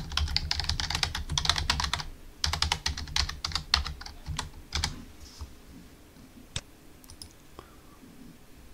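Typing on a computer keyboard: quick runs of keystrokes for about five seconds, then a few scattered single clicks.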